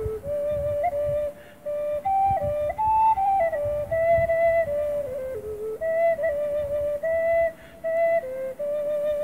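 Wooden ocarina in A playing a slow melody of clear, held notes that step up and down, with short breaks for breath about one and a half seconds in and near the end. Low rumbles of wind buffet the microphone underneath.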